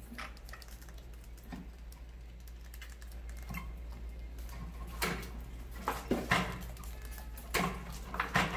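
Rats scrabbling on a homemade plastic bucket trap: light clicking and scratching of claws on hard plastic, with a run of sharper clacks in the second half as a hinged plastic platform tips and drops a rat into the bucket near the end.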